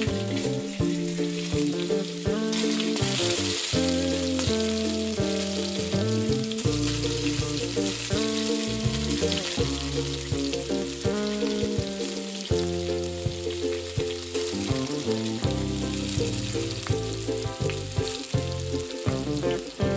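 Food frying in hot oil in a pan, a steady sizzle, with background music of held melodic notes playing over it.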